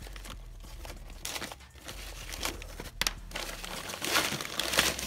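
Nylon drawstring bag rustling and crinkling as hands pull its cord loose and open it, in irregular handling noises with a few sharper clicks.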